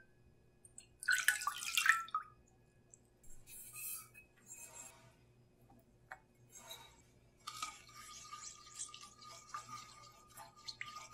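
Milk poured into a pan, splashing and gurgling for about a second near the start. Then a few short sounds as sugar and tapioca starch are tipped in from a small metal cup, and from the second half a spatula stirring through the milk.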